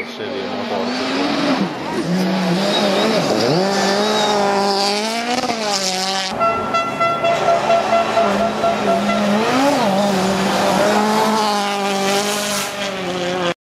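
Citroën DS3 WRC rally car's engine at full throttle, its pitch rising and dropping again and again through gear changes as the car passes at speed. About six seconds in the sound cuts abruptly to another pass of the same kind.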